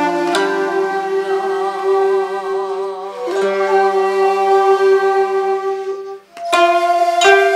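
Japanese sankyoku-style ensemble music: koto and shamisen plucking under long held notes that waver in pitch. About six seconds in the sound briefly drops away, then a run of sharp string plucks starts.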